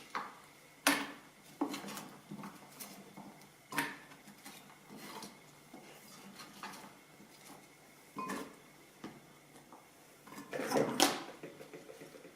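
Kitchen handling sounds as celery juice preparation begins: scattered knocks and clatters, with a busier run of clattering about ten seconds in. No blender motor is running.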